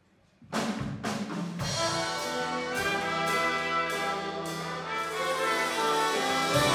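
Live big band starting a song's introduction about half a second in: a few sharp accented hits, then held brass chords over drums and bass.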